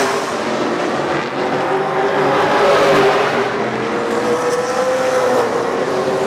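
Several Super 6 late model race cars running at speed, their engines blending into a steady drone with engine notes wavering in pitch as cars pass.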